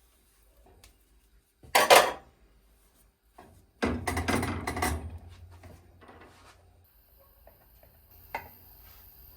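Cookware clattering as a frying pan is handled. There is a loud clank about two seconds in, a longer run of clattering and scraping around four to five seconds, and a single sharp click near the end.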